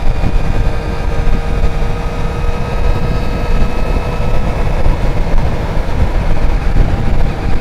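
Heavy wind noise over the microphone on a moving motorcycle, with a Triumph Street Triple's three-cylinder engine holding a steady note underneath.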